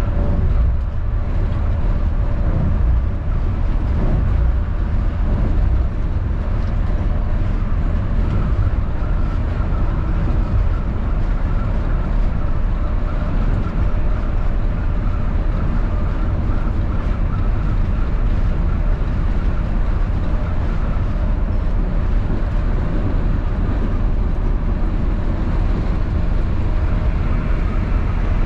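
Volvo B9R coach heard from inside its cabin at highway cruising speed: a steady deep rumble of engine and road noise with faint steady tones above it.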